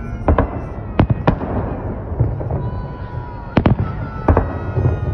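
Aerial firework shells bursting in the sky: a series of sharp bangs, several coming in close pairs, over a continuous low rumble.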